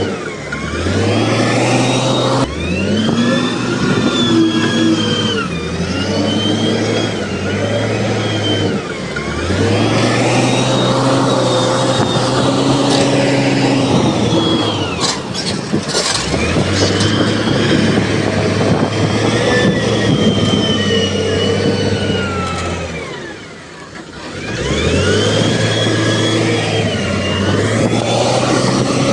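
Diesel engine of heavy earthmoving machinery revving up and dropping back, over and over, every few seconds, with a brief lull shortly before the end.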